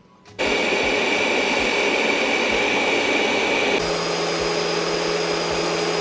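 Robot vacuum running at maximum suction, picked up from about half a metre above: a steady whir with a high whine, from the Roborock S8 Pro Ultra, which sounds a bit noisier. A little under four seconds in it cuts to the Ecovacs Deebot T20 Omni at maximum suction, a steady whir with a lower hum and without the high whine.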